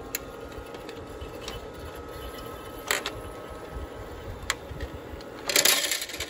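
Frigidaire countertop ice maker running its ice-harvest cycle: a small motor hums steadily as the ice tray tips, with a few sharp clicks, and near the end a short clatter as the freshly made ice cubes drop into the basket.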